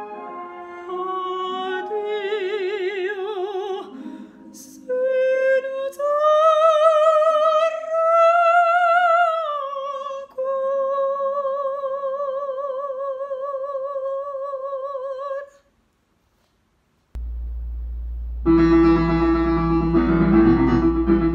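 Soprano voice singing an operatic phrase with wide vibrato, holding long high notes over piano accompaniment. The singing stops about three-quarters of the way through; after a short silence a low hum comes in, then piano music begins.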